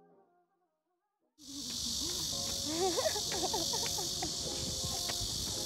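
Faint piano music dies away, then after about a second of silence a steady, dense high-pitched insect chorus starts abruptly. Faint gliding calls sit lower beneath it.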